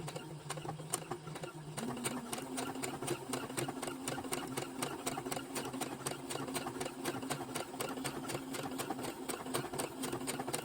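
Brother automatic sewing machine stitching steadily at its maximum stitch setting: a motor hum under a fast, even ticking of the needle mechanism. The motor's hum rises in pitch about two seconds in as it picks up speed.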